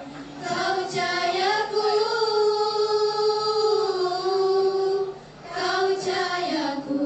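A group of schoolgirls singing together into microphones, holding long notes with wavering ornamented runs, with a brief break for breath about five seconds in.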